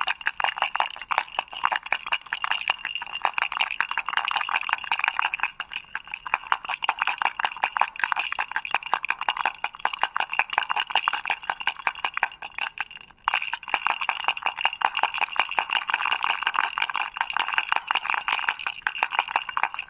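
Toy rattle shaken steadily, its beads clicking rapidly and continuously, with one brief break about 13 seconds in.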